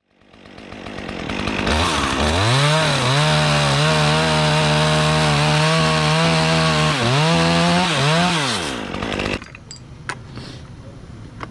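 Chainsaw engine revving up to full speed over the first two seconds and running flat out, dipping briefly in pitch a few times as the throttle eases. It cuts off suddenly about nine seconds in, followed by a few faint knocks.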